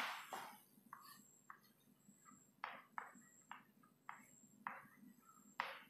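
Chalk writing on a chalkboard: a string of short, faint scratches and taps, roughly eight strokes with quiet gaps between them.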